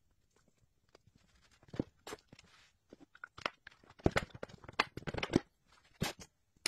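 Irregular clicks and knocks of a 1964 Cadillac power seat transmission's metal case and parts being handled and fitted back together on a wooden workbench. The taps start about two seconds in and come thickest a little past the middle.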